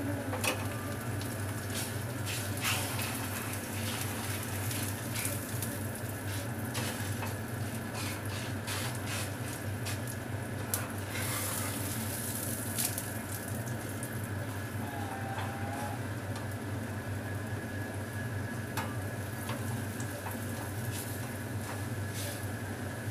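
Flatbread dough for an egg roll sizzling in a little oil in a hot flat pan, with occasional clicks and scrapes from a metal spatula, over a steady low hum.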